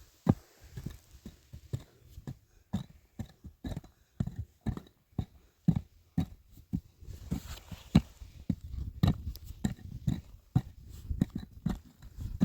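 A run of dull knocks and thuds, irregular at about two or three a second, coming thicker in the second half.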